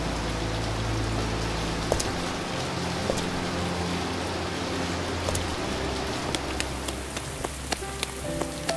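Heavy rain falling on a wet platform, a steady hiss, with a low, sustained music score underneath. Sharp drips and splashes come more often in the second half.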